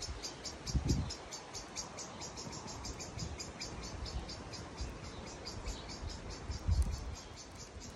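Rapid, even chirping, about five short high chirps a second, keeping up without a break. Two low thumps stand out, about a second in and near the end.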